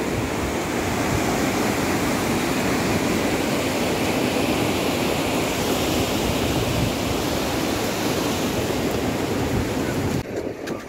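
Steady loud rush of the Yamuna, a fast mountain river tumbling over a boulder-strewn bed, cutting off sharply near the end.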